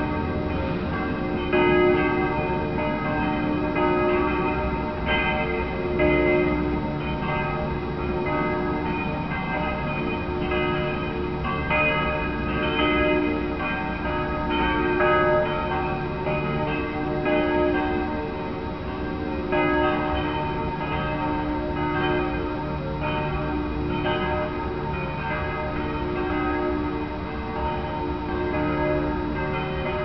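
Church bells ringing together in a continuous peal: overlapping strikes, several a second, each leaving a long ringing tone.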